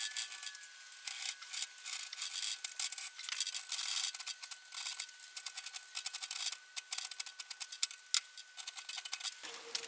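Hand file rasping on mild steel in quick, uneven strokes, filing out a slot in a black-pipe lock body. Just before the end the scratching gives way to a steady hum.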